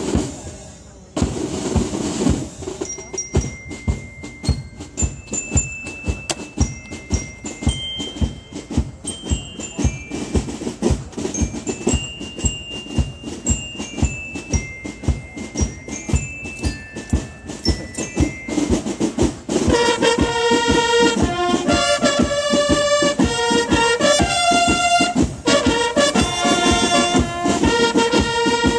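A corps of drums playing: drums beat a steady march rhythm under a high, clear melody, then about two-thirds through bugles come in with the drums and the music grows louder and fuller.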